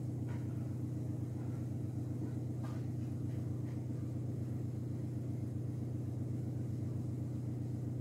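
Steady low background hum, with a couple of faint soft taps in the first few seconds.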